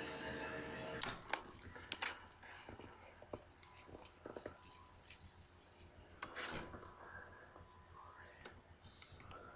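A low steady hum that cuts off about a second in, then irregular sharp clicks and small pops over a faint background.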